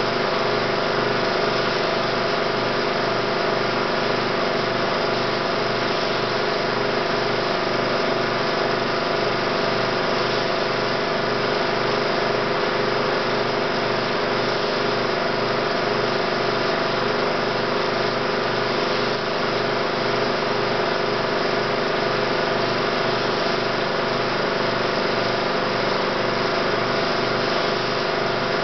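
16mm film projector running: a steady mechanical whir of motor and film mechanism, unchanging throughout.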